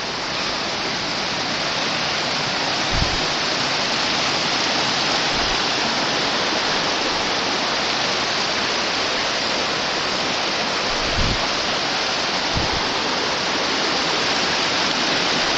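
Creek water rushing steadily, a constant full white-noise rush.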